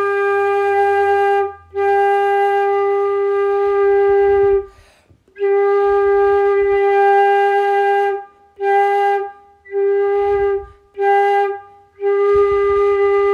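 Concert flute playing the same note again and again: three long held tones, then four shorter ones. It is a tone-colour exercise, the note blown with a more open, unfocused lip opening (a horn-like sound) and then a narrower, focused one.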